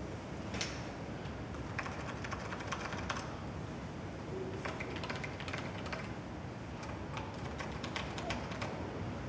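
A run of small, light clicks and taps from hardware being handled and set in place, over a steady low background rumble. The taps come in two clusters, one about two seconds in and a longer one from about halfway through.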